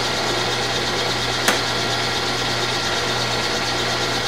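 Vertical milling machine running with a steady hum, with one sharp click about a second and a half in.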